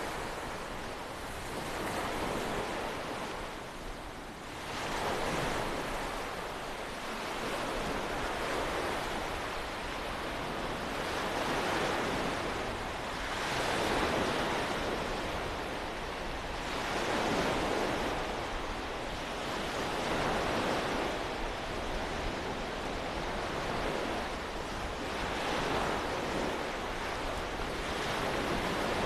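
Small waves washing onto a beach in a steady wind, swelling and fading every few seconds, with wind buffeting the microphone.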